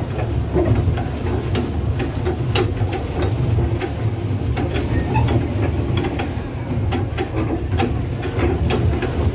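Pedal-driven swan boat under way: a steady low rumble with many sharp, irregular clicks and knocks from its pedal drive and paddle wheel.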